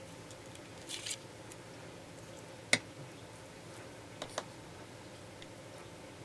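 Cardstock cut-outs being handled and pressed into place by hand: a short papery rustle about a second in, one sharp tap near the middle, and two light clicks a little later.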